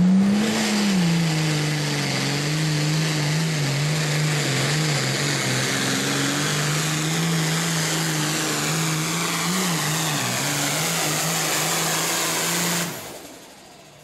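Super Farm class pulling tractor's turbocharged diesel engine running flat out under load as it drags the weight-transfer sled. The pitch rises briefly at the start, then wavers slightly, and the engine sound cuts off suddenly near the end.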